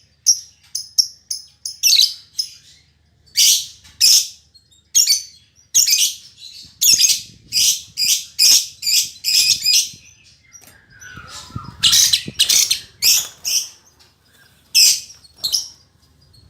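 Female lovebird calling in rapid runs of short, shrill chirps, many in quick succession with brief pauses between the runs: the loud, persistent 'gacor' chatter of a female with a fighter temperament.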